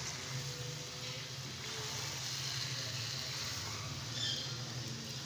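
Chicken pieces frying in oil in a karahi, a steady sizzle as they are stirred with a silicone spatula, with a low steady hum underneath.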